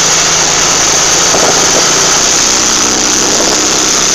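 Western Star log truck's diesel engine running steadily while the truck drives along, heard from inside the cab as a low steady drone under a broad hiss.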